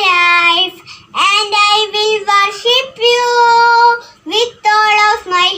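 A young child singing alone, unaccompanied, in phrases of long held notes with short breaths between them.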